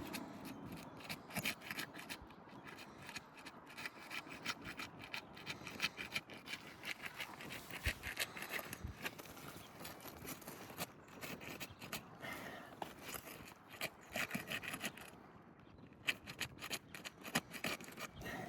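A flat shingle-removal bar scraping and crackling as it is worked under sealed three-tab asphalt shingles to break them loose from the sealant strip, with irregular scrapes and clicks. The seal is holding, so the shingles resist.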